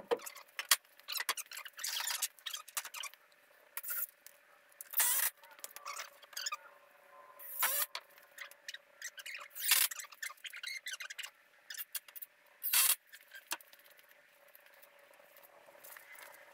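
Wooden boards being slid and set down on a concrete floor: a run of sharp scrapes, squeaks and knocks, the loudest about five, eight, ten and thirteen seconds in. A faint steady hum runs underneath.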